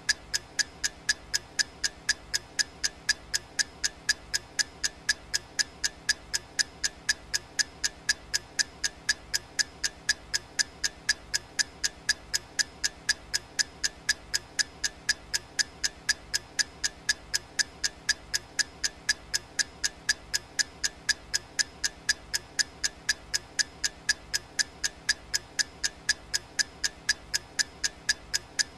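Clock-ticking sound effect of a countdown timer: sharp, even ticks at a steady rate of about two a second.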